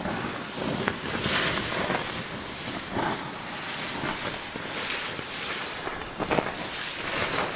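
Campfire embers being doused with water, hissing and sizzling loudly as steam rises off the hot ash, with a few sharp pops.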